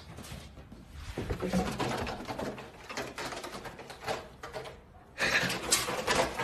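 A cat's paws and claws thumping and scrabbling as it runs and leaps onto a carpeted cat tree, with knocks and rustling. A sudden louder burst of scuffling comes about five seconds in.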